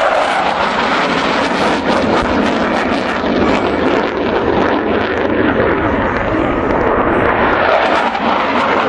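Panavia Tornado jet flying by, its twin RB199 turbofan engines making a loud, steady jet noise.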